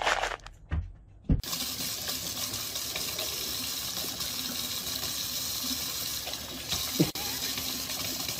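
Kitchen faucet running a steady stream into a sink, starting about a second and a half in. A short, louder sound stands out about seven seconds in.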